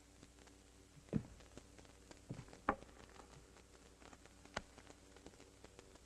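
Faint steady hum with a few scattered short knocks, the loudest about a second in and just before the three-second mark, and another past four and a half seconds.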